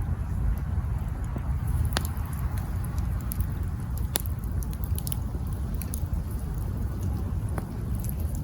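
Wood campfire crackling: scattered sharp pops and fine ticks over a low, steady rumble, with the strongest pops about two, four and seven and a half seconds in.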